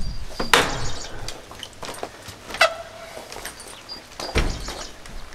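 A few knocks and thumps from a prehung exterior door and its jamb being shifted and pressed into place in the rough opening; the loudest come about half a second in and near the end, with a brief ringing tone after a knock near the middle.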